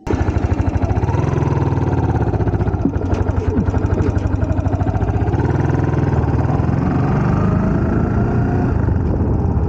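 A small engine running loudly and steadily, its pitch wavering slightly up and down. It cuts in suddenly at the start.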